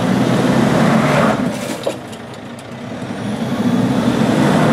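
2014 Toyota Hilux engine working under load as the ute climbs a steep rock step. The revs rise, ease off about one and a half seconds in, then build again. There is a single short knock near the middle.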